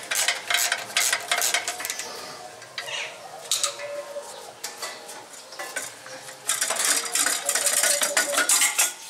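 Bursts of quick metallic clicking and clinking from a wrench working the bolts of a Toyota's clutch pressure plate, as the clutch is taken off with the gearbox removed. The loudest bursts come near the start and again about two-thirds of the way in.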